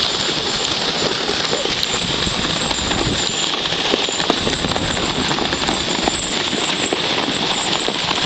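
A horse trotting with hoofbeats crunching in the snow, over the steady hiss of a sled sliding on snow behind it.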